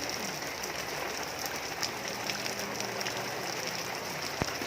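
Steady rainfall, with scattered individual drops striking and one sharp knock near the end.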